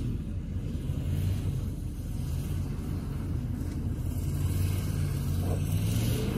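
The 6.5-litre diesel V8 of a 1998 Chevy Silverado dually pickup running under throttle as the truck slides sideways on snow. It is a low, steady drone that gets a little louder in the second half.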